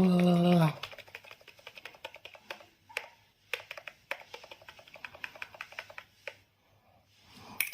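Typing on a retro typewriter-style keyboard with round keys: a quick, uneven run of key clicks that stops about six seconds in. A voice holding a note is heard just before the typing starts.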